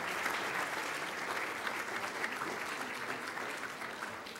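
Audience applauding: many hands clapping at once in a steady, even patter.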